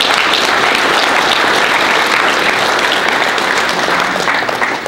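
Audience applauding in a hall, dying away near the end.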